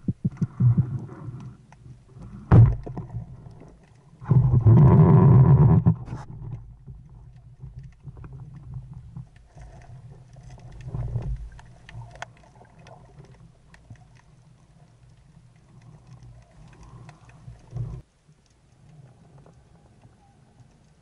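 Muffled underwater knocks, clicks and rumble from an action camera in a waterproof housing as a diver handles a speargun and a speared fish, with a dense rushing noise for about two seconds near the start. The sound drops to a faint hiss a few seconds before the end.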